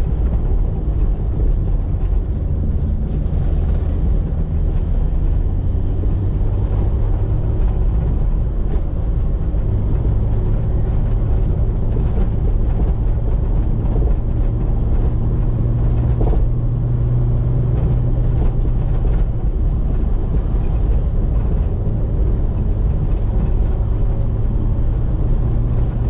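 Car engine and tyre noise heard from inside the cabin while driving, a steady low drone.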